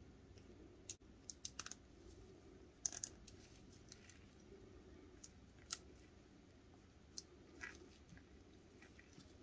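Small, sharp plastic clicks and ticks as the interlocking pieces of a plastic Bibendum keychain puzzle are pushed and slid apart by gloved fingers: a quick cluster a second and a half in, a louder pair around three seconds, then a few single ticks, over faint room noise.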